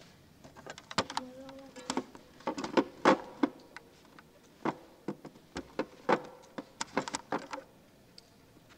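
A run of irregular sharp clicks and knocks, some in quick pairs, with a brief low steady tone about a second in; they stop about a second before the end.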